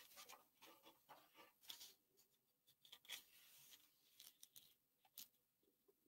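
Near silence: room tone with faint scattered clicks and rustles.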